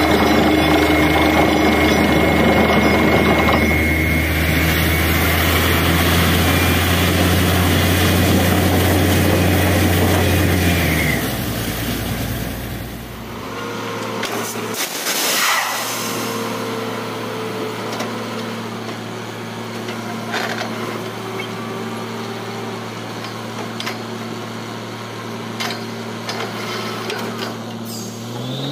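Truck-mounted borewell drilling rig running under heavy load for about the first ten seconds, then dropping to a lower, steadier idle hum. Right at the end the engine begins to rev up again.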